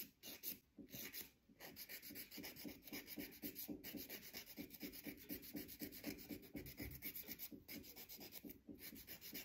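Hand nail file rubbing back and forth across a fingernail in short, quick, scratchy strokes: a few scattered strokes at first, then a steady run of several a second from about a second and a half in. The file is wearing down the old gel product on the nail surface.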